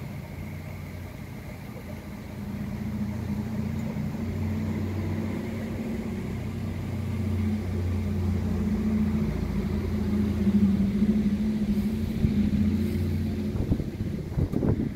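A motor vehicle's engine running with a steady low hum that grows louder through the middle and eases toward the end, with wind buffeting the microphone near the end.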